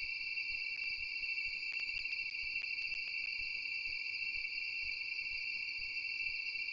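Steady, high-pitched chorus of night insects, an unbroken shrill drone with a few faint clicks.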